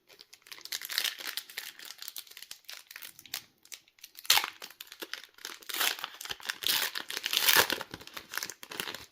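Foil trading-card booster pack wrapper crinkling and crumpling in the hands, in irregular crackles, with a sharp crackle about four seconds in and a denser, louder stretch after that.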